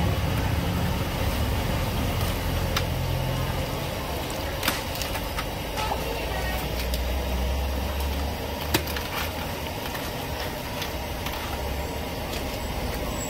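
Steady low engine-like hum with a few sharp clicks of steel tongs on an aluminium steamer, the loudest about five and nine seconds in.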